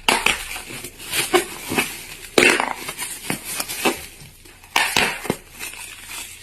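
Irregular clattering and knocking of hard objects, with louder bangs about two and a half and five seconds in.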